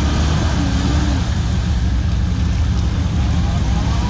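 Off-road truck engine running with a steady low rumble.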